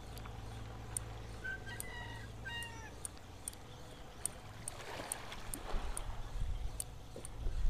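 Two or three short animal calls about two seconds in, each bending up and down in pitch, over a low steady hum.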